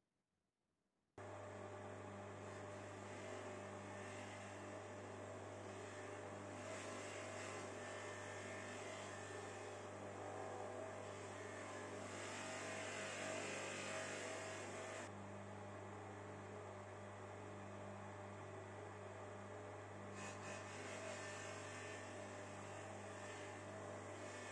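An INGCO electric motor spins a buffing wheel with a steady electric hum, which starts suddenly about a second in. A steel hacksaw frame pressed to the wheel with polishing compound adds a rushing, scrubbing noise that swells and eases as the work is pushed on and eased off.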